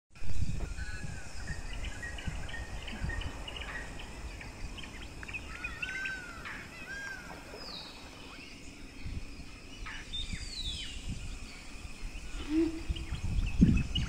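Birds calling in open forest: many short chirps and arching whistles, with two clear falling notes about a third and two thirds of the way through, over a low, uneven rumble.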